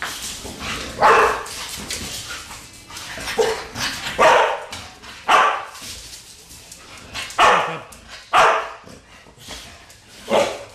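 American bulldog barking at animals on a television screen: about seven short, single barks, unevenly spaced, a second or two apart.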